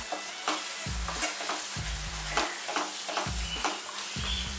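A spatula stirring and scraping a thick onion-tomato masala paste as it fries in oil in a nonstick kadai, with quick repeated scrapes over a steady sizzle. The spices are being roasted (bhuna) in the oil.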